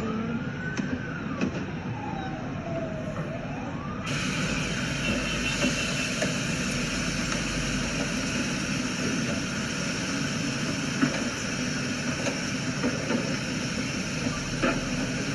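An emergency-vehicle siren wailing up and down for the first four seconds. It gives way to a dense, steady din, broken by a couple of sharp cracks, the loudest about eleven seconds in.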